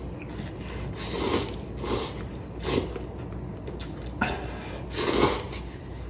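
A man slurping instant cup ramen noodles, about four hissing slurps roughly a second apart, the loudest about five seconds in.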